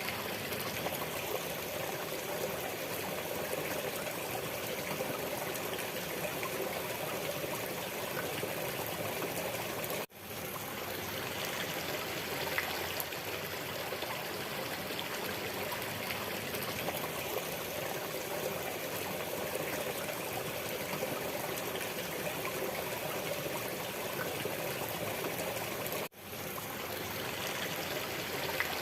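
Waterfall: a steady rush of falling water, broken by two sudden, momentary dropouts, about ten seconds in and near the end.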